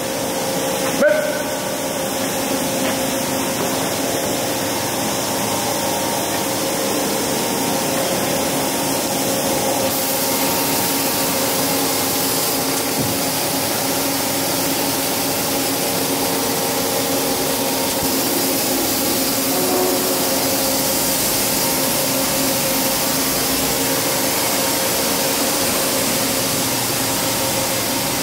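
Niigata HN-80C CNC horizontal machining center powered up and running: a steady machine hum made of several held tones under a hiss. The hiss gets louder about ten seconds in.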